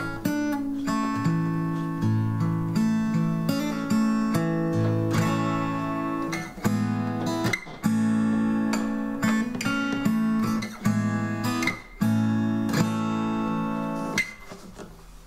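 Fender DG60CE acoustic guitar strung with Ernie Ball Earthwood bronze alloy extra light (10–50) strings, strumming a slow run of chords, each left to ring before the next strum, dying away near the end. Picked up by the Focusrite iTrack Pocket's built-in stereo mic.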